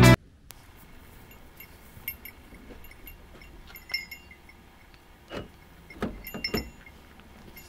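Light metallic jingling and clinking, small ringing chinks scattered through, with a few soft knocks or handling thuds about two-thirds of the way in.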